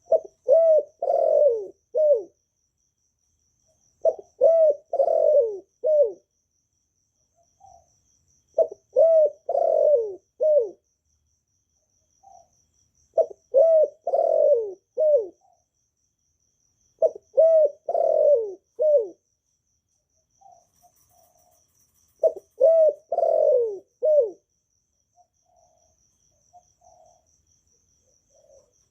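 Spotted dove cooing: six multi-note phrases of about four falling coos each, repeating roughly every four and a half seconds, with soft single notes between them.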